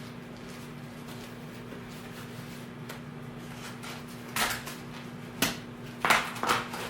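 A sheet of glass being handled out of its cardboard packaging: a few short scraping and rustling noises in the second half, over a steady low hum.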